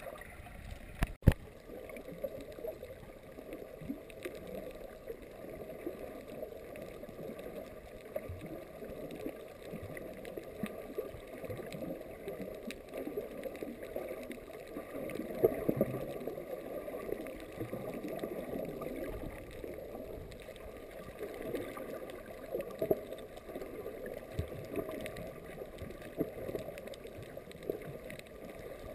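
Muffled underwater noise through a submerged camera's housing: water swishing and gurgling with scattered small clicks, and one sharp knock about a second in.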